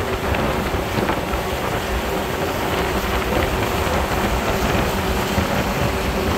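Tugboat under way: a steady engine hum under the rush of white churning wake, with wind buffeting the microphone.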